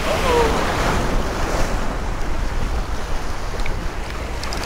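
Surf washing and breaking over rocks, with wind buffeting the microphone.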